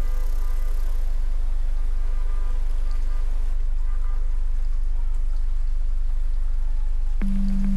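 Intro of a downtempo electronic track: a steady deep bass drone under a hiss of rain, with faint held tones above it. Near the end a keyboard chord comes in.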